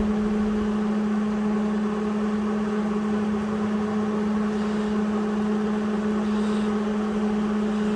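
Steady, even mechanical hum with no crackle or breaks.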